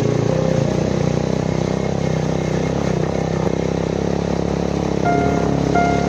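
Motorcycle engine running at a steady road speed, with wind and road noise from riding a rough dirt path. A melodic background music track comes in over it about five seconds in.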